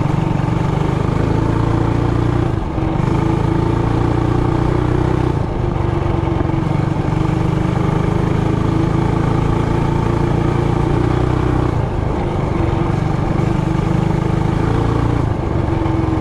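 Trailmaster Hurricane 200X mini bike's single-cylinder gas engine running steadily under way, its note dipping briefly a few times as the throttle eases off.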